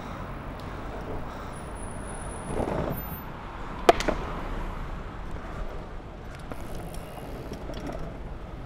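Longboard wheels rolling on asphalt amid city traffic. A short swell of noise comes about two and a half seconds in, and a single sharp knock about four seconds in.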